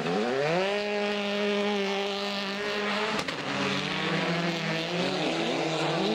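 Rally car engine revving up hard through a snowy corner and held at high revs for a couple of seconds. It breaks off with a sharp click about three seconds in, then the revs rise and fall as the car changes gear and comes off and back on the throttle.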